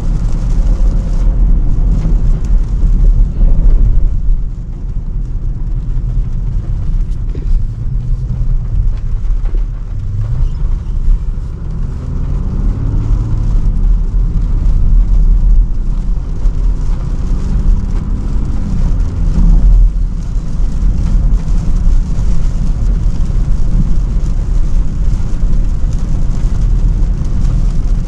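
Range Rover Sport on the move: a steady, strong low road and engine rumble. In the middle stretch the engine note rises and falls several times as it pulls away and changes gear.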